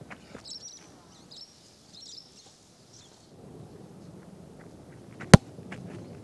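A single sharp thud of a boot kicking an Australian rules football about five seconds in, after a few seconds of footsteps on the grass during the run-up. Birds chirp in the first half.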